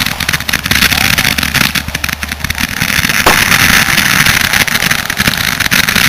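Fireworks going off: a dense run of crackling pops, with one sharper bang about three seconds in.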